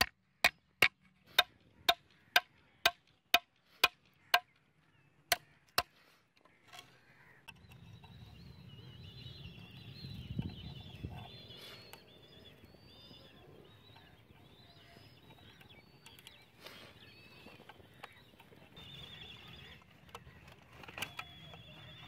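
Hammer striking a steel nail to drive it through a board into the ground: sharp metallic blows about two a second, stopping after about four seconds, then two more spaced-out blows. After that, faint bird chirps over low background noise.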